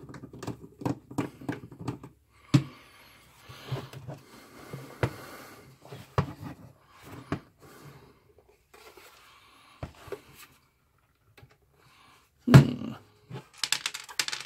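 Handling noise from the plastic case of a Sealody SSA60 soldering station being turned over by hand on a wooden bench: scattered light clicks, taps and rustling. There is one louder knock about twelve seconds in as the unit is set down, then a short scrape near the end.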